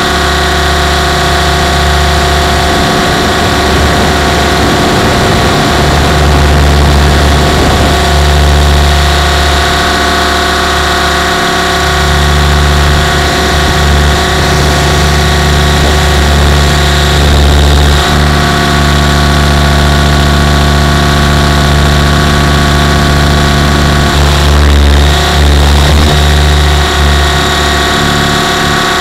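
On-board sound of a Compass 6HV electric RC helicopter in flight: a loud, steady whine of many tones from the motor, drive gears and spinning rotor. The pitch wavers briefly a few seconds in and again near the end.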